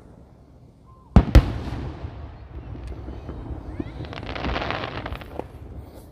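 Fireworks display: two sharp aerial shell bursts just over a second in, a quarter second apart, followed by a spell of dense crackling from a glittering burst between about three and a half and five and a half seconds in.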